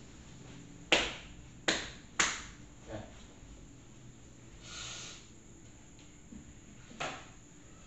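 Sharp hand smacks, three close together about a second in, then a softer one and another near the end, each with a brief echo. A short hiss comes midway.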